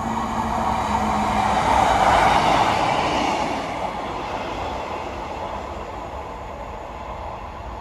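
A single-car Class 153 diesel multiple unit running past, its engine and its wheels on the rails heard together, swelling to its loudest about two seconds in and then fading as it moves away.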